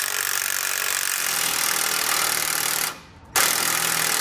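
Cordless impact wrench hammering U-bolt nuts down onto a leaf-spring pack. It stops briefly about three seconds in, then starts again.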